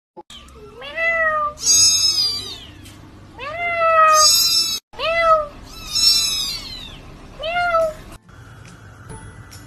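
Kittens meowing in turn, about seven calls in the first eight seconds, each rising then falling in pitch. Some are low and some are much higher and shriller, and a few overlap. The calls stop about eight seconds in, leaving only a faint steady hum.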